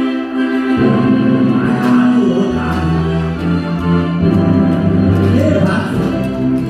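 Bride-and-groom entrance music: sustained organ-like chords, with a bass line coming in about a second in and a voice singing along at times.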